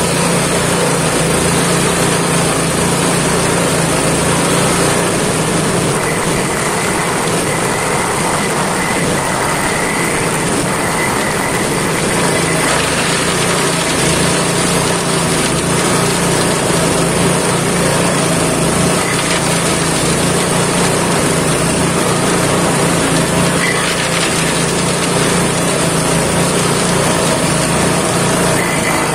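Homemade grass chopper running steadily at speed, its drum and new blades, cut from used brush-cutter blades, chopping leucaena branches as they are fed in.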